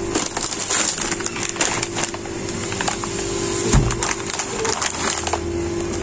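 Crackling, rustling handling noise, densest in the first two seconds, with a low bump a little past halfway, over a steady hum.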